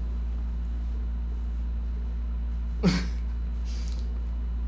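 Steady low hum of room noise. About three seconds in, a person gives one short vocal exclamation that falls in pitch, followed by a faint breathy exhale.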